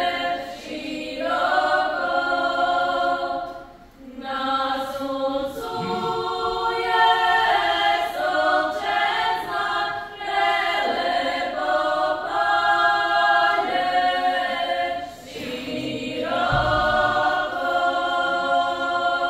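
A group of women's voices singing a Croatian Zagorje folk song in harmony. The long held phrases are broken by three brief pauses for breath.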